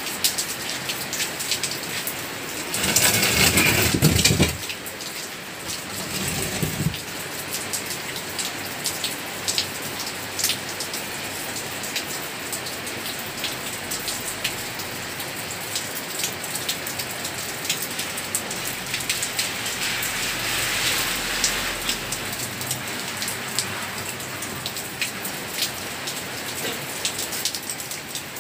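Heavy rain falling steadily, a constant hiss full of separate drop ticks on wet concrete and corrugated roofing sheets. About three seconds in, a louder rush of noise swells up for a second or two, then dies away.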